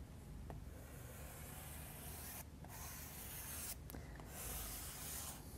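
Derwent XL charcoal block (ochre) stroked across smooth pastel paper: a faint, dry scratching, with a few brief breaks as the block lifts between strokes.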